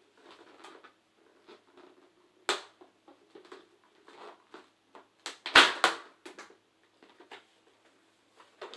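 Hard plastic Beyblade stadium parts being handled and knocked together: scattered clicks and taps, with a sharp knock about two and a half seconds in and the loudest knocks about five and a half seconds in.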